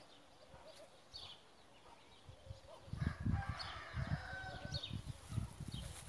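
A rooster crowing in one long call about halfway through, over small birds chirping. Low rumbling bumps on the microphone come in at the same time and are the loudest thing.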